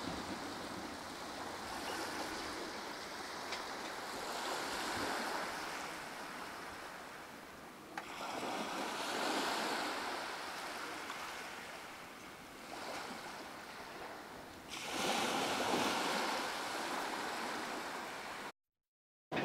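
Small waves washing onto a sandy shore, the surf swelling and fading in slow surges. The sound drops out completely for a moment near the end.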